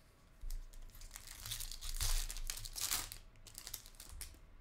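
Foil wrapper of a Bowman University Chrome basketball card pack being torn open and crinkled, in several rustling bursts over about three seconds, with a few lighter clicks near the end.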